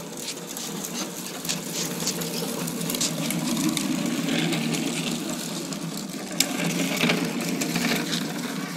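Hard plastic wheels of children's ride-on toy motorcycles rolling over rough asphalt: a steady rattling rumble with scattered clicks, a little louder through the middle.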